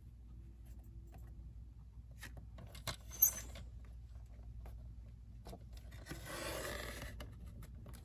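Fiskars paper trimmer in use: a few light clicks, the sharpest about three seconds in, as the blade carriage is set and dropped into place. About six seconds in comes a scrape of about a second as the blade is slid along the rail, cutting a slot in the paper.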